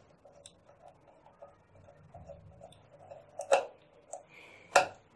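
Small tester screwdriver turning a terminal screw in a water level controller's plastic terminal block to clamp a wire: a run of faint quick clicks, about five a second, then two sharper clicks, one a little past the middle and one near the end.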